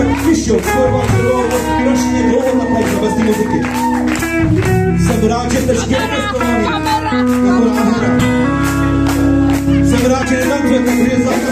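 Live rock band playing: a man singing into a microphone over electric guitar and a drum kit keeping a steady beat.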